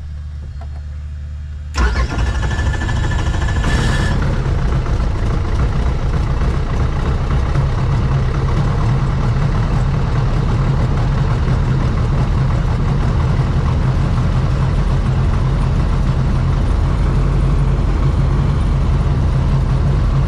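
Schweizer 269C-1 helicopter's four-cylinder Lycoming piston engine starting: it cranks and catches suddenly about two seconds in, with a high whine for the next two seconds, then runs steadily at idle.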